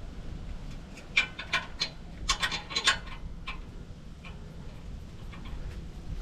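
Quick clicks and taps of exhaust bolts being put into the mounting holes and finger-tightened, about eight in a cluster between one and three seconds in, then a few fainter ones.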